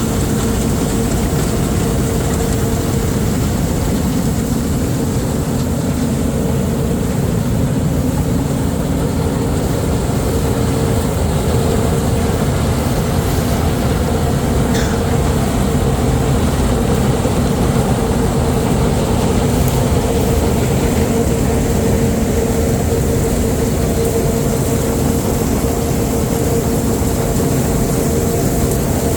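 Heavy farm machinery running steadily under load: a deep engine rumble with a constant whine on top.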